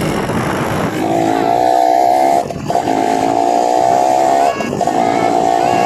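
Dirt bike engine held at high revs, dropping off briefly twice, about two and a half and four and a half seconds in, before picking up again.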